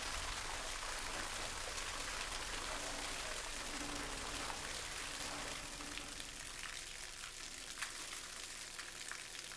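Water gushing from the discharge pipe of a water-powered elevator's hydraulic cylinder and splashing onto the floor: a steady rushing, splattering hiss that fades gradually over the last few seconds.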